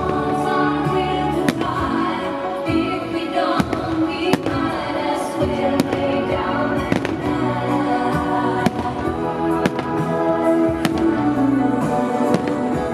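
Fireworks shells bursting overhead: a series of sharp bangs at irregular intervals, roughly one every second or so, over loud festive music.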